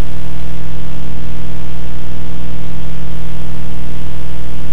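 Loud, steady electrical mains hum with a buzzy edge, unchanging throughout, from the recording chain rather than from anything on screen.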